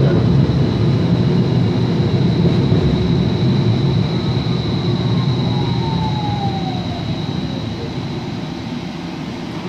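Portland Streetcar riding in traffic, heard from inside: a steady rumble with a constant high whine. In the second half a whine falls in pitch as the car slows.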